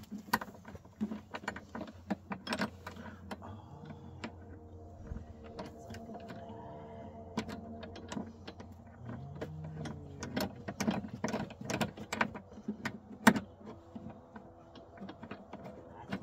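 Light metal clicks and clinks of a steel turnbuckle, its hook and a short chain being handled as the turnbuckle body is twisted to tighten a tie-down. A faint hum rises and falls twice in the middle.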